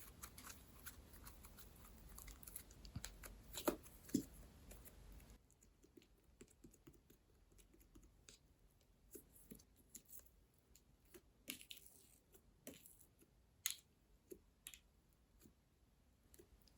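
Clay-mixed slime being squished and pressed by hand, giving faint, irregular sticky clicks and small pops, with a few sharper snaps about 4 seconds in and again later.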